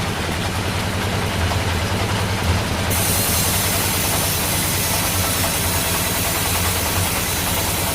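Bandsaw sawmill machinery running steadily with a low engine-like hum. About three seconds in a brighter hiss joins and holds.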